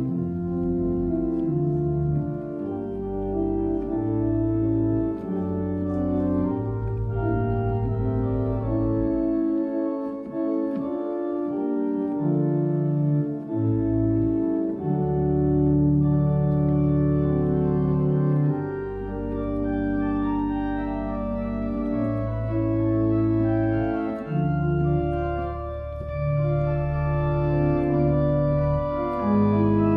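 Church organ playing slow sustained chords over a deep bass line, the chords changing every second or two. The bass drops out for a lighter passage about ten seconds in, then returns.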